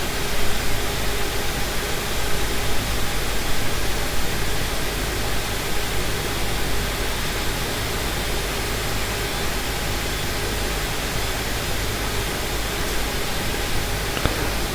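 Steady fan-like whooshing noise with a faint low hum underneath, unchanging throughout.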